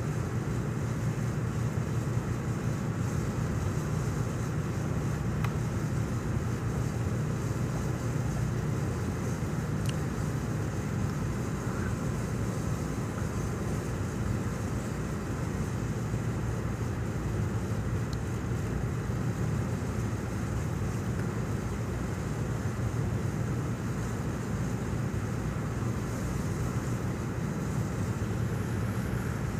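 Cargo ship underway: a steady low engine drone with an even hiss of wind and water over it.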